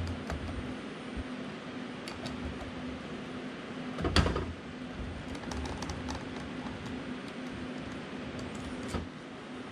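Small clicks and knocks of hands and a tool working plastic and metal parts at the end of a copier drum unit, with one louder clunk about four seconds in and another click near the end. A steady low hum runs underneath.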